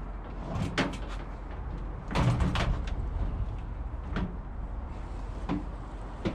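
Several separate knocks and clunks, like doors or panels being handled, with the loudest cluster about two seconds in. A steady low rumble runs underneath.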